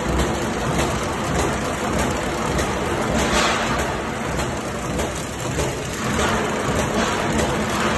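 V-bottom flat-bottom paper bag making machine running: a steady, dense mechanical clatter and rush of rollers and moving paper web, with a brief louder hiss about three and a half seconds in.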